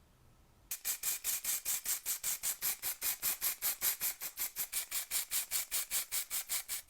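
Rapid, even back-and-forth rubbing strokes, about five a second, as something is scrubbed or rubbed by hand on the metal toy. They start about a second in and stop just before the end, with a faint squeak in each stroke.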